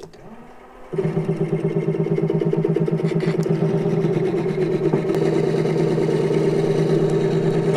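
Mini metal lathe starting up about a second in, then running steadily with a loud, pulsing motor hum as the spindle turns a steel bolt.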